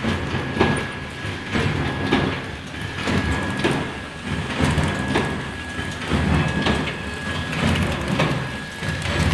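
Automatic wet wipes packing machine running, its mechanism clacking in a steady rhythm about twice a second over a low rumble and a thin steady whine.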